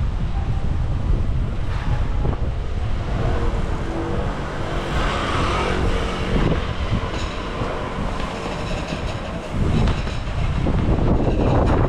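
A train passing close by: a steady low rumble with a hum that swells in the middle, and wind buffeting the microphone.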